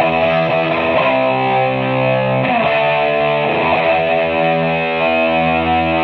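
Electric guitar, a faded Gibson SG played through Marshall DSL40C tube combo amps. A few quick picked notes give way to held chords that ring out, changing about two and a half seconds in and again a second later.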